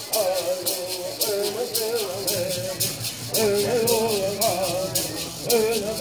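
Bird song: a group of singers' voices over the steady, evenly paced shaking of gourd rattles. The singing eases off briefly before coming back stronger a little past halfway.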